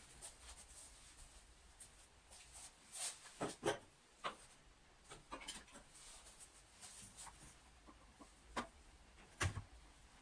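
Irregular light clicks, taps and knocks of small parts and tools being handled while an old lamp is worked on. A cluster comes about three to four seconds in, and a duller knock near the end.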